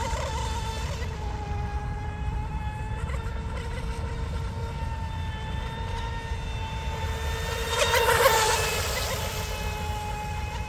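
Electric motor and propeller of a small RC mono racing boat running at speed with a steady high-pitched whine that wavers slightly in pitch. About eight seconds in, the boat sweeps close by and the sound briefly swells with a hiss of spray.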